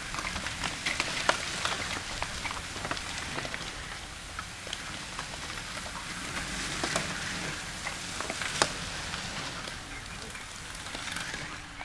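Road bicycles riding past on a gravel road: a steady crackle of tyres on loose grit with many scattered sharp clicks and ticks, easing off as the group thins out near the end.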